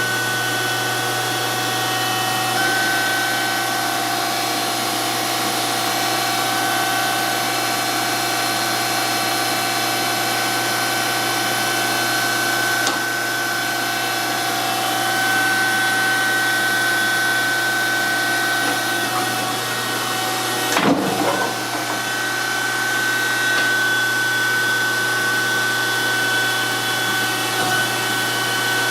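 DoAll 14-inch surface grinder running steadily: a constant motor hum with a high steady whine over it. A brief louder rattle comes about 21 seconds in.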